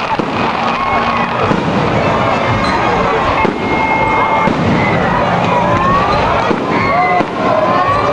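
Fireworks display going off in a dense, continuous barrage of bangs and crackling, with several whistling shells gliding in pitch through it.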